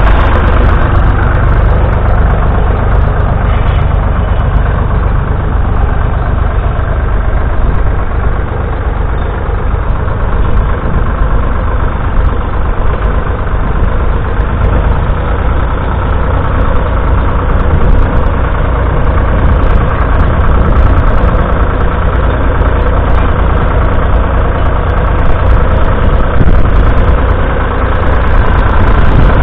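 Ford Dexta 2000 tractor's diesel engine running steadily under load while pulling a two-furrow mounted plough through the soil.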